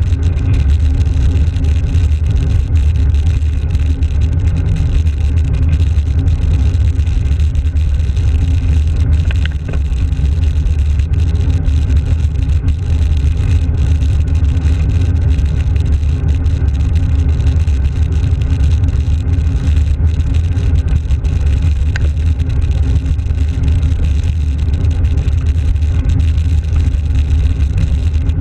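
Steady low rumble of wind buffeting a GoPro Hero's microphone on a moving bicycle, mixed with road noise.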